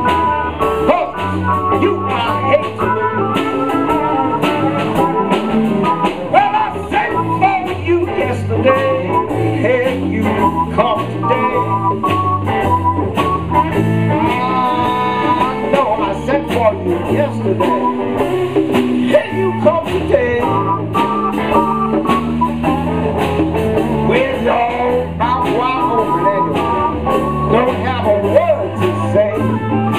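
Live blues band playing a song, with electric guitar over a bass line and drums.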